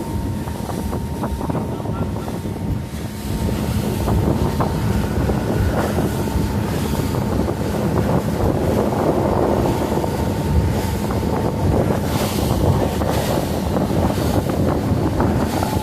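Motorboat under way: its engine running steadily under heavy wind noise on the microphone and water rushing past the hull, getting somewhat louder about four seconds in.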